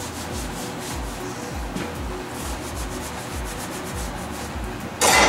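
A cloth rag rubbed back and forth over a pickup truck's frame rail, wiping it clean, with a sudden loud burst of noise near the end.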